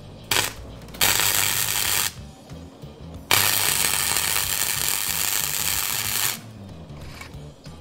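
Electric arc welding on steel plates: a short burst, then a run of about a second, then a steadier run of about three seconds, each starting and stopping abruptly. Background music plays underneath.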